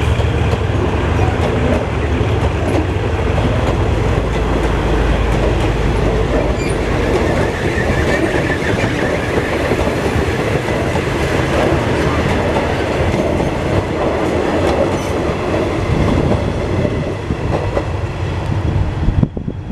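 State Railway of Thailand passenger coaches rolling past at close range: a steady rumble of wheels on rail with faint clicking. It cuts off abruptly near the end.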